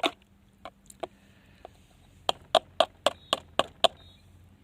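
Plastic snuffer bottle being handled while its gold concentrates are rinsed out, giving sharp clicks: a few light ones, then a quick run of about seven a little past halfway.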